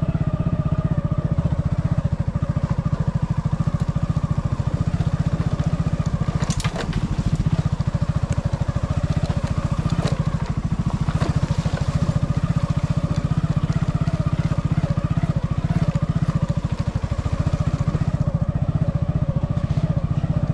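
Motorcycle engine running steadily at an even, low speed, with a single sharp knock about six and a half seconds in.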